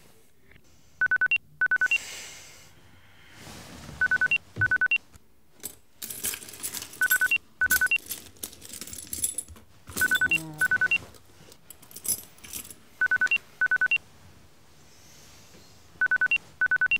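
Mobile phone ringing: pairs of short trilling electronic beeps, repeating about every three seconds. Between the rings in the middle there are quieter bursts of noise.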